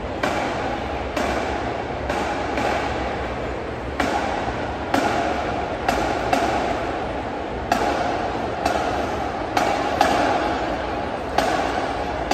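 Marching band drums striking sharp hits about once a second, sometimes two close together, each echoing through a large indoor arena, over a steady wash of hall sound.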